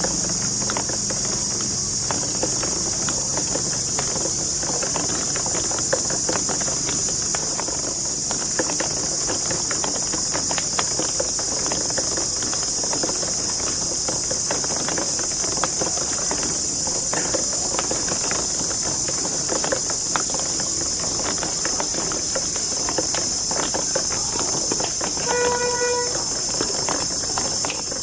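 Many marbles rolling and clattering down plastic slides and tubes, a dense, irregular patter of small clicks over a steady hiss. Near the end there is a short pitched tone.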